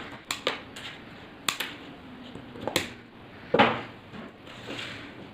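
Small clicks and rustles from hands working a wire onto an LED lead, about half a dozen short sounds spread out, the loudest about three and a half seconds in.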